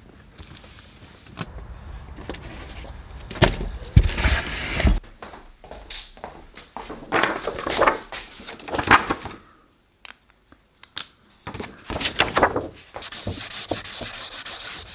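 Assorted handling noises: rustles, knocks and rubbing in irregular bursts. Later on, a sheet of paper rustles and a marker pen scratches across it, crossing out a written word.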